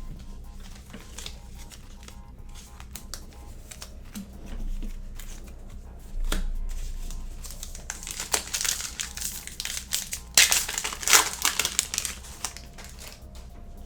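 Foil wrapper of a Panini Revolution basketball card pack being crinkled and torn open, in dense bursts of crackling in the second half, loudest near the end. A few light clicks come before it.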